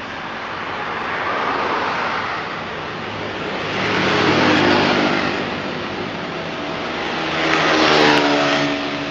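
Road vehicles passing by: three swells of traffic noise that rise and fade, the last with an engine note that drops in pitch as it goes past.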